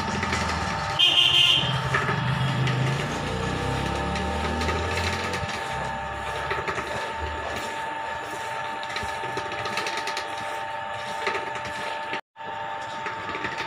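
Wooden ghani oil press (chekka ganuga) running as its wooden pestle crushes groundnuts in the bowl: a steady mechanical hum with a constant whine and grating. A short, loud high beep sounds about a second in, over a low rumble that fades after about five seconds, and the sound drops out for an instant near the end.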